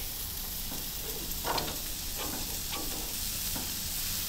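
Raw elk burger patties sizzling on a hot grill grate as they are laid down one after another, a steady high hiss with a few brief soft sounds as patties go down.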